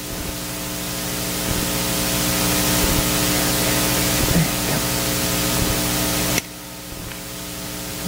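Steady electrical hiss and hum from the audio system, with no other clear sound. The hiss swells gradually and cuts off abruptly about six seconds in, leaving the hum.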